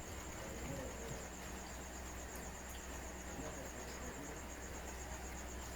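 Faint steady background noise: a low electrical hum under a thin, high-pitched whine that pulses evenly.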